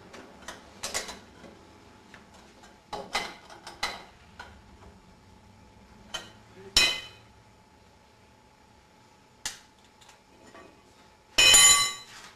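Car jack and tire-changing tools clinking and knocking as the car is lowered off the jack: a scattering of metal knocks, with a loud ringing metal clank near the end.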